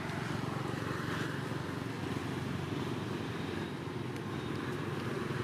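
Steady low background rumble with a faint hum in it, and a couple of faint clicks near the end.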